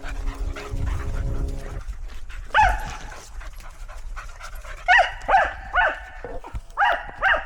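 A dog barking with high, arching yelps: one about two and a half seconds in, then five in quick succession near the end, the excited barking of a dog running at play. A low steady hum runs under the first two seconds.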